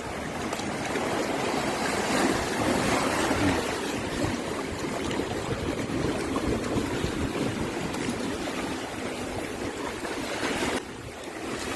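Shallow seawater washing and trickling over sand and pebbles at the water's edge, a steady rush that drops off abruptly near the end.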